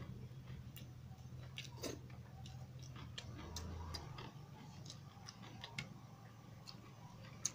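Faint eating sounds by hand: scattered small clicks and smacks of chewing and of fingers working rice on a plate, with one sharper click near the end, over a low steady hum.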